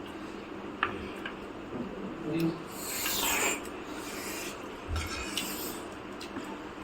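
Table noises at a meal: a few light clicks, and about three seconds in a short rasping scrape that slides downward in pitch.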